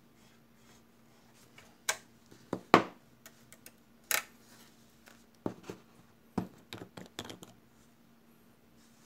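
Irregular sharp clicks and taps of small hand tools and plastic parts being handled and set down on a work table, the loudest just under three seconds in.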